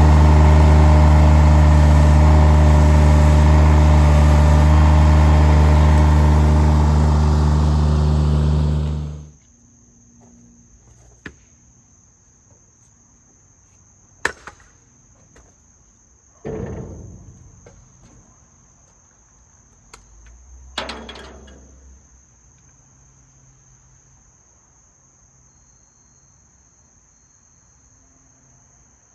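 An engine running steadily, shut off suddenly about nine seconds in; afterwards crickets chirp in a steady high tone, with a few brief knocks and clunks.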